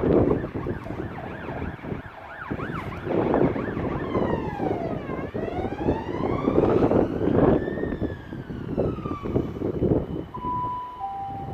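Freightliner freight train rolling slowly past, its wheels clattering and rumbling. A high tone rides over the train noise, sweeping down and up like a wailing siren over several seconds. Near the end come two short steady tones.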